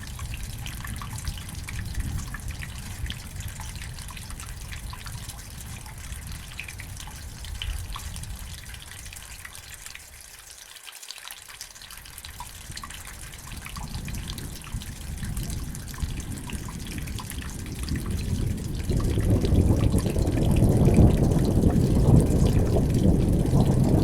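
Steady rain with scattered drips, under a low rolling rumble of thunder. The rumble fades out around the middle, then builds again and swells to its loudest over the last five seconds.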